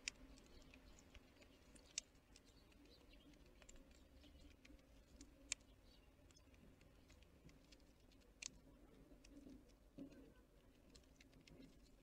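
Faint, scattered clicks and taps of small animals working at a seed feeder, with a few sharper knocks about two, five and a half and eight and a half seconds in.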